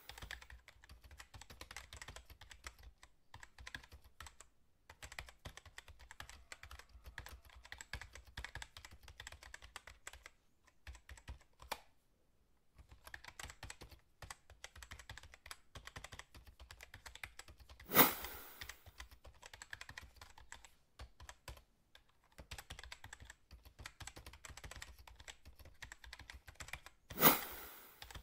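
Keyboard-typing sound effect: rapid key clicks, pausing now and then, accompanying on-screen text that types itself out. Two sudden louder hits break in, about eighteen seconds in and again near the end.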